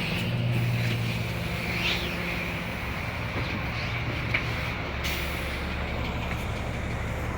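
Inside a 2012 IC RE school bus: its MaxxForce DT inline-six diesel engine running steadily as the bus comes to a stop, the engine note settling lower about halfway through. A single sharp click sounds a little over four seconds in.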